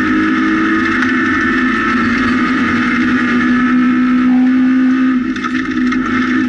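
Rally car's engine heard from inside the cabin, held at high revs with a steady, slowly rising pitch as it pulls along a gravel stage, then easing off about five seconds in. Tyre noise and clicks of gravel stones against the car run underneath.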